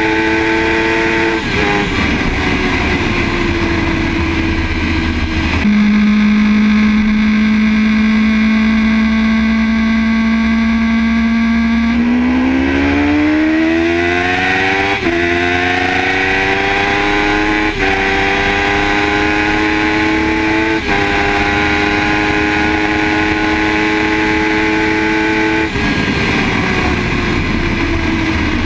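Sport bike engine at wide-open throttle on a top-speed run, heard onboard over heavy wind rush. The engine note holds steady, climbs in pitch through several gear changes from about halfway, runs flat out at a steady high pitch, then sinks slowly as the throttle is rolled off near the end.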